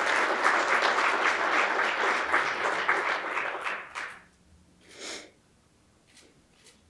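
Audience clapping for about four seconds, then dying away. A single brief noise follows about a second later.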